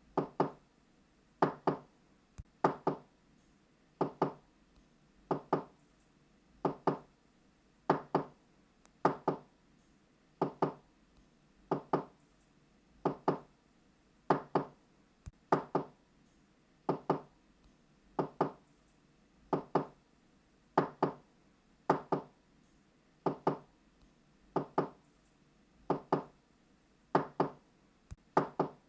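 Knocking on a wooden door in double knocks, a quick 'knock-knock' pair about every second and a third, repeated steadily.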